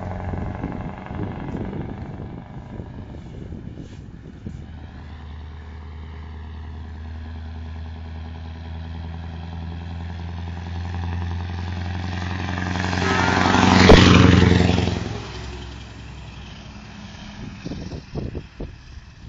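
Engine of a motor vehicle approaching and passing close by: a steady engine note that grows louder to a peak about fourteen seconds in, then fades quickly.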